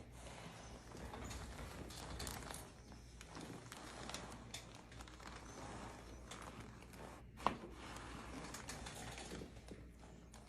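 Faint rustling and shuffling of bodies on a treatment table, with one sharp crack about seven and a half seconds in: a neck joint popping during a chiropractic adjustment.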